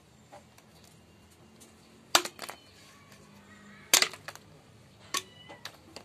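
Machete blade chopping into a green bamboo tube, cutting it down into a bamboo drinking cup (bahor chunga): a handful of sharp, hard chops, the two loudest about two and four seconds in, each followed by a lighter knock, and another chop near the end.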